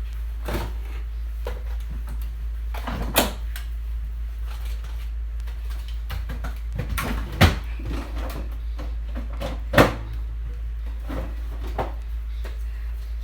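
Fridge and cupboard doors being opened and shut in a hurry, with knocks and rattles of things being handled. The sharpest knocks come about three, seven and a half and ten seconds in, over a steady low hum.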